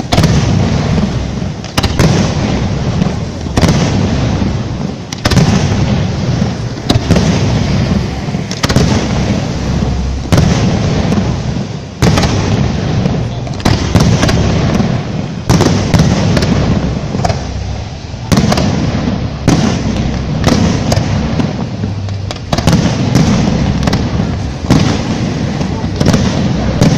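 Aerial fireworks display: a barrage of shells bursting overhead, sharp loud bangs about one or two a second over a continuous low rumble.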